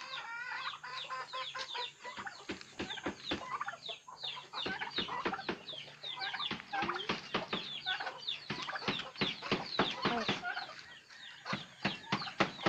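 Chickens calling: a dense stream of quick, high, falling chirps, several a second and overlapping.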